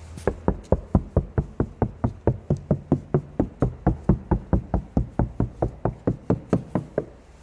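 Knuckles rapping quickly and steadily on the outer steel door panel of a 2013 Kia Rio, about four knocks a second for roughly seven seconds. The door skin has Kilmat 50 mil sound-deadening mat applied inside, which is described as making it more muffled.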